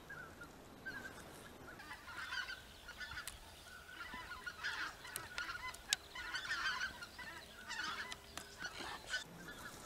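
Greater white-fronted geese in flight calling in a quick, repeated series of high honks. A single sharp click is heard about six seconds in.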